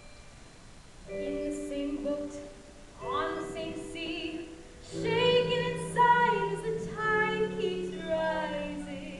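A stage-musical song starting live in a theatre: held accompaniment notes come in about a second in, then singing over a sustained low note.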